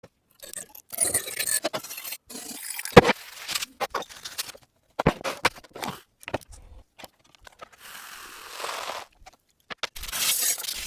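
Rusty steel cleaver blade being worked with tools in a string of short bursts: scraping and crunching of rust, metal clinks, and a sharp knock about three seconds in, which is the loudest sound. Hissing, noisy stretches come near the end.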